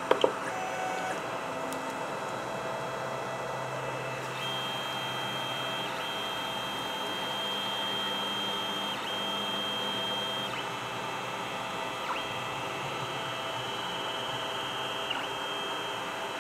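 Stepper motors of an EcubMaker ToyDIY 3D printer driving its laser tool head back and forth during the laser pre-scan: a steady high whine that breaks off briefly each time the head stops or reverses, over the steady hum of the tool head's cooling fan. Two sharp clicks come right at the start.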